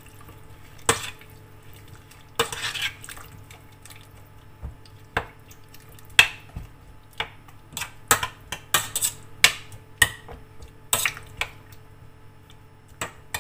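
Metal spoon stirring chopped tomatoes in a steel pot: irregular clinks and scrapes against the pot's sides and bottom, a few ringing briefly.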